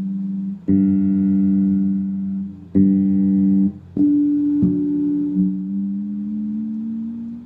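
Headless electric bass with a fretless neck being played: long sustained plucked notes, four struck in the first five seconds, then a note slid slowly upward near the end.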